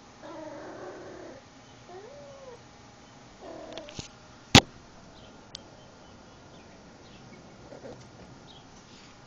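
Domestic cat making short, pigeon-like cooing calls and chirps with bending pitch, mostly in the first half. A single sharp click sounds about halfway through.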